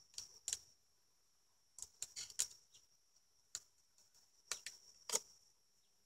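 Irregular sharp clicks and light scrapes of a metal hive tool against wooden hive frames and boxes, bunched about two seconds in, with the loudest knock about five seconds in, over a steady faint high hiss.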